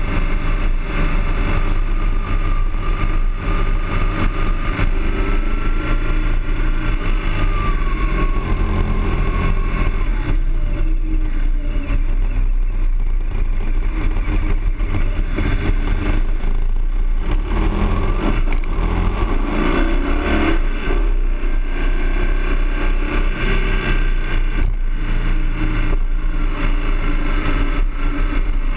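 BMW R 1200 GS motorcycle's flat-twin boxer engine running under way, its pitch rising and falling with throttle and speed changes, with constant rushing wind noise over the camera.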